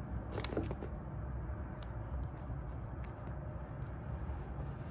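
Hands handling a plastic shrink-wrapped phone box: scattered light crinkles of the film and small taps and scrapes of the cardboard box, over a low steady background hum.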